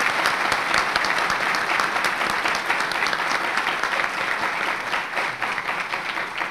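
Large audience applauding steadily, the clapping slowly thinning out toward the end.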